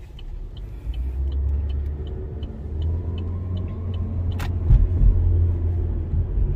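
Cabin noise inside a 2022 Chevy Malibu LT while driving: a steady, noisy low road and engine rumble that grows louder about a second in. A light, even ticking comes about two to three times a second, and there is a single bump about two-thirds of the way through.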